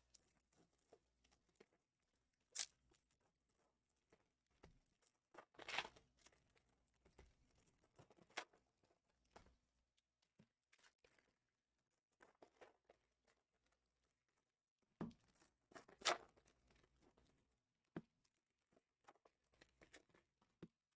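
Foil trading-card packs being torn open and handled: a few short tearing and crinkling sounds, scattered among near silence. The loudest come about a quarter of the way in and about three-quarters through.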